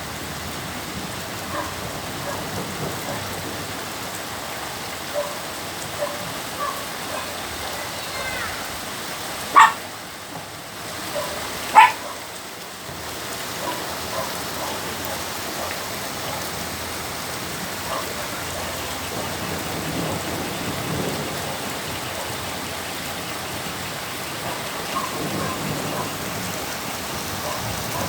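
Steady rain falling and pattering on surfaces, with scattered drips. Twice, about two seconds apart, near the middle, a short loud sound rises above the rain.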